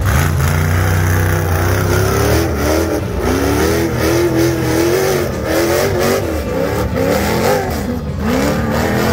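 Off-road race buggy's engine revving hard under load as it climbs a steep rocky hill. A deep steady note for the first couple of seconds gives way to pitch rising and falling over and over as the throttle works.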